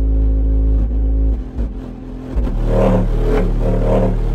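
Vulkan Xtreme V11 15-inch subwoofers playing a song's bass line loudly in free air, with no enclosure, during a mechanical excursion test. Deep sustained bass notes change pitch about a second and a half in, and a pulsing beat with three punchier hits follows near the end.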